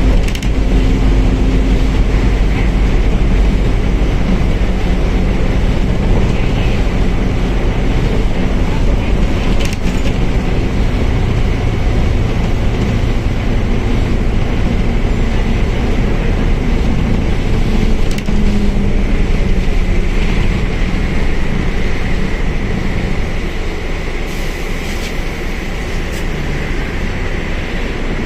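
Mercedes-Benz OF1721L bus running on the road: steady diesel engine and drivetrain noise, easing off slightly in the last few seconds.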